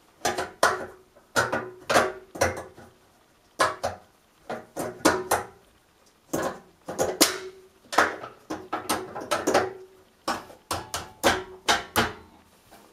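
A string of irregular clicks and knocks against a panel radiator, some with a brief metallic ring, as its end caps are pushed and clipped into place.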